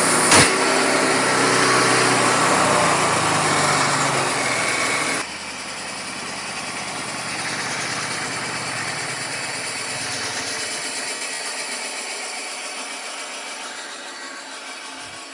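Wood-Mizer portable bandsaw mill running, engine and blade going steadily, with one sharp crack about half a second in. About five seconds in the sound drops suddenly, then fades slowly.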